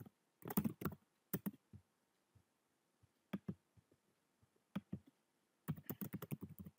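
Computer keyboard typing: a few scattered keystrokes, then a quick run of keystrokes starting near the end.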